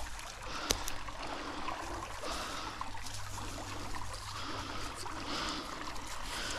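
Steady flowing river water, with faint rustling and a few small clicks from a rope being handled, the sharpest about a second in.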